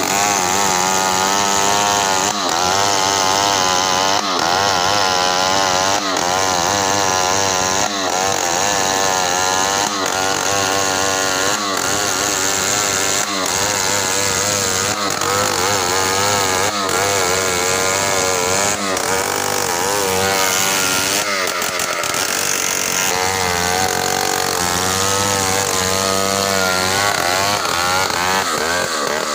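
Large two-stroke chainsaw running at high revs while ripping lengthwise through a hardwood log. The engine pitch wavers and dips briefly every second or two as the chain loads up in the cut and recovers.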